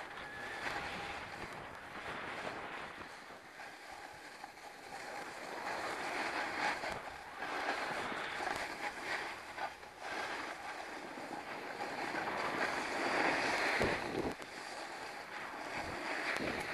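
A snowboard sliding over snow, a rushing scrape that swells and fades with the turns, loudest about halfway and again near the end, with wind buffeting the microphone and a few short knocks.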